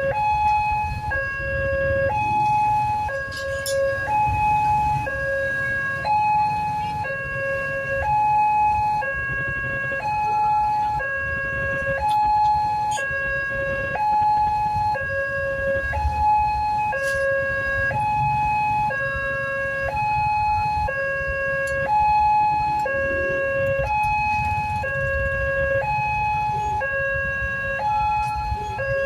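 Indonesian railway level-crossing alarm sounding from its pole-mounted loudspeaker: an electronic two-tone warning that alternates steadily between a lower and a higher note and repeats without pause. It signals that the barriers are closed and a train is approaching.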